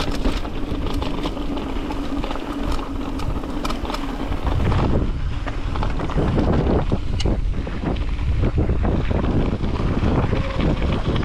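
Mountain bike descending a rough downhill trail at speed: wind buffeting the microphone over tyre roar, with the frequent clatter and rattle of the bike over bumps. The wind rumble grows much louder about five seconds in as speed picks up.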